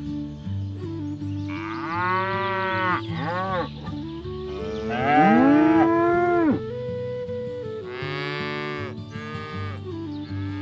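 Cattle mooing, several long calls one after another, the loudest about five seconds in, rising and then falling in pitch. Background music with steady held notes plays underneath.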